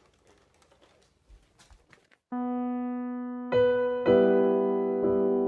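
Faint small clicks and rustles, then about two seconds in, electric-piano-style keyboard music starts: held notes and chords that are added one after another.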